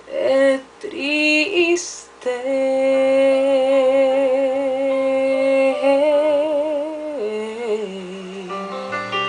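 A woman singing a Spanish pop ballad: a few short sung phrases, then one long held note that rises with vibrato and then steps down in pitch.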